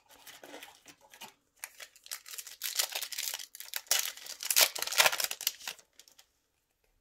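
Foil trading-card booster pack wrapper being torn open and crinkled by hand: a run of crackly rustling and tearing that grows busiest and loudest in the middle, then stops about a second before the end.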